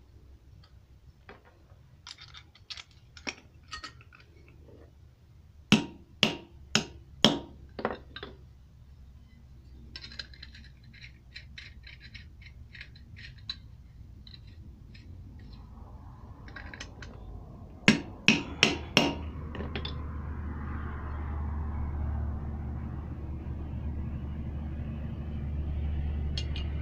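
Metal parts and tools being handled while the two-piece vacuum pump pulley is bolted together: scattered small clinks and clicks, with two runs of four sharp metal knocks a few seconds in and again about two-thirds through. A low rumble comes up in the last few seconds and holds.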